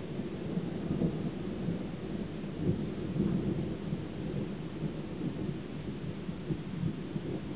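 Thunder rumbling on in a long roll that swells and eases, over the steady hiss of rain.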